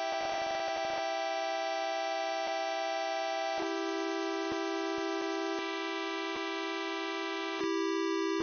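Sustained synthesizer chord tones, as in a mock emergency alert. The chord shifts about a third of the way in and again near the end, where it gets louder, with faint clicks at intervals.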